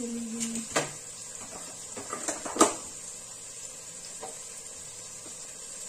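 Diced chicken and green chillies frying in a pan, a faint steady sizzle, with a few sharp clinks of kitchen utensils, the loudest about two and a half seconds in.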